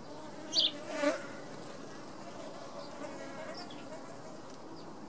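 A flying insect buzzing near the pond surface in a steady, slightly wavering hum. Within the first second or so there are two brief louder sounds: a short high chirp, then a sharp click.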